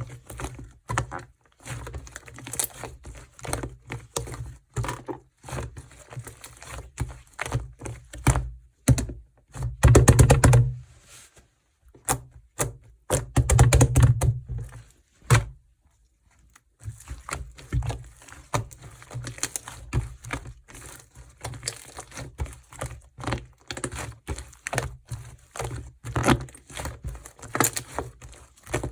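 Slime being squished and stretched by hand, making rapid sticky clicks and pops. It gets louder twice near the middle and pauses briefly just after.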